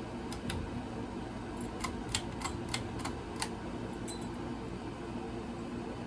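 Quorum pinwheel ceiling fan running with a steady hum. About eight light, irregular clicks come in the first four seconds.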